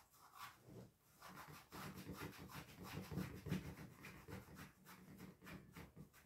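Faint rubbing of a wet cloth over the fabric of a pagadi turban in short, irregular strokes, wiping off mould.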